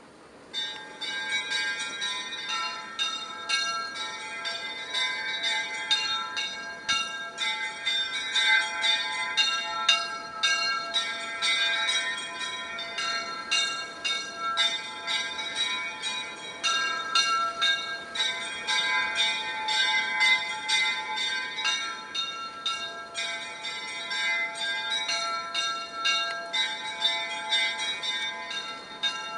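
Church bells ringing a peal: several bells of different pitches struck in quick, overlapping succession, each ringing on. The ringing starts about half a second in.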